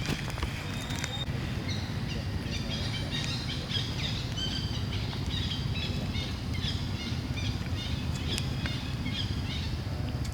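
Small birds chirping in a rapid string of short, high notes over a steady low rumble.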